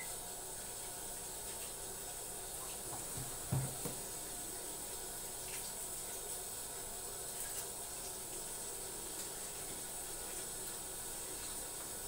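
Tap running steadily into a bathroom sink, the water splashing over a cat being washed under it. A brief low thump about three and a half seconds in.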